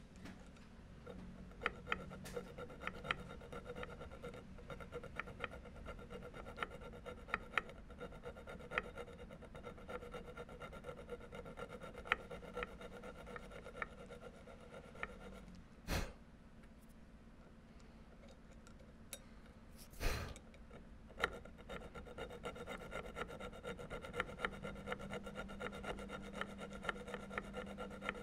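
Hand file scraping in short strokes on the threaded steel breech end of a rifle barrel held in a vise. There are two louder knocks, about halfway through and again a few seconds later.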